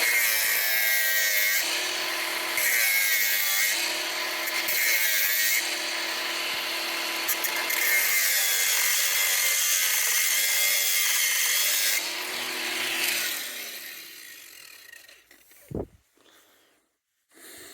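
Power tool cutting a slit down the side of a band so it can be removed. The motor's pitch repeatedly dips under load and recovers. It winds down about 13 seconds in, followed by a brief low thump.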